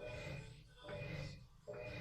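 Washing machine motor running an agitation cycle, driving the wash back and forth in even strokes a little over one a second, each stroke a low hum with a whine, with brief pauses at each reversal.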